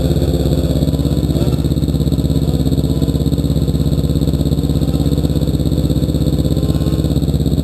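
Snowmobile engine idling steadily, with an even, fast pulse.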